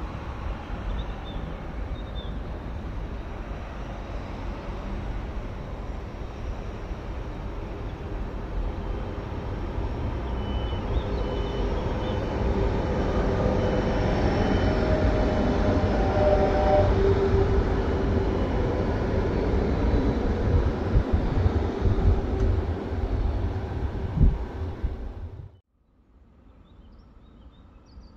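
Double-deck regional electric train running past: a deep rumble of wheels on rail with a faint motor whine, building to its loudest about halfway through, then cutting off suddenly near the end.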